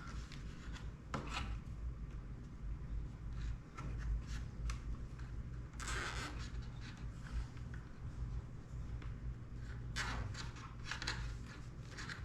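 Scattered rubbing and rustling of hands handling drone parts during a repair, the biggest bursts about a second in, near the middle and near the end, over a steady low hum.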